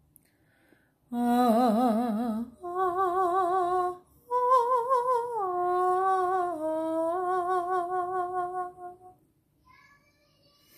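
Wordless vocal toning: a voice holds three long notes with a wide, wavering vibrato. The last and longest note steps down in pitch twice before fading out.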